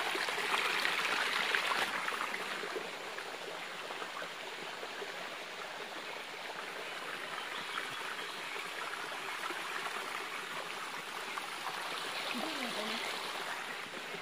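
Water of a forest stream rushing over rocks, louder for the first two or three seconds and then steady.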